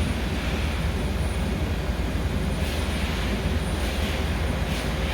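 Railway locomotive running close by: a steady low rumble with a thin high whine on top.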